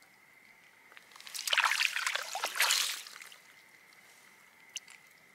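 A gutted fish swished and rinsed in the icy water of an ice-fishing hole: a splashing, sloshing burst lasting about two seconds.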